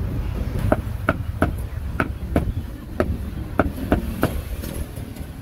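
Cleaver chopping meat on a block: a run of about nine sharp chops, roughly two a second, starting under a second in and stopping after about four seconds, over a low background rumble.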